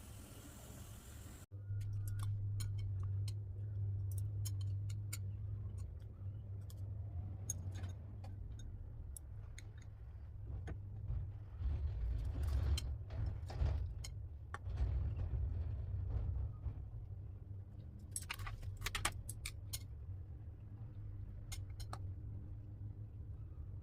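Scattered light clicks and small metallic clinks over a steady low hum, with a quick cluster of clinks near the end.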